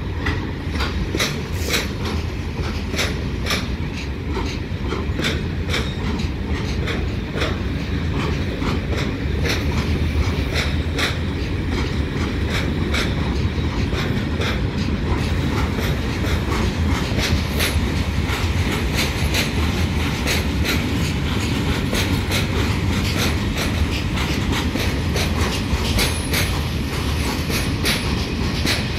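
Freight train of container flat wagons rolling past, with a steady rumble and a run of sharp clicks from the wheels passing over rail joints.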